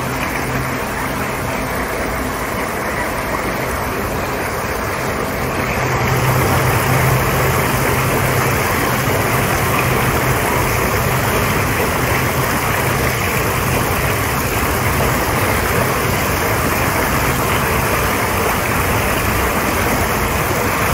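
Freight train rolling across a steel truss railway bridge: a steady rumble and rush with a low hum underneath. It grows louder about six seconds in.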